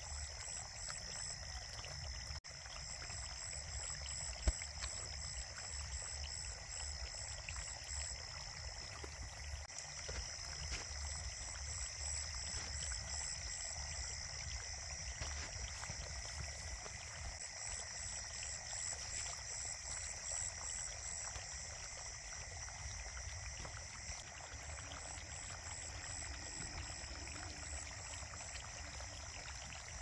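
Night insects trilling steadily in long pulsing phrases, over a continuous patter of small splashes and gulps from a crowd of fish at the water's surface, with a low rumble underneath.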